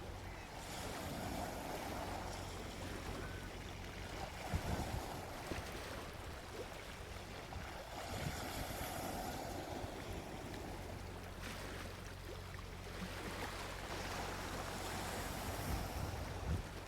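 Gentle sea waves washing onto a beach, surging and fading about every seven seconds over a low steady rumble, with a few soft low thuds.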